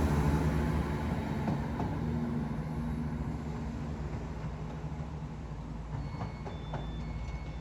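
Train running with a low rumble that fades gradually, with faint high tones and light clicks near the end.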